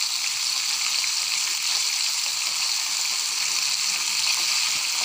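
Batter-coated chicken pieces deep-frying in a pan of hot oil: a steady, even sizzle.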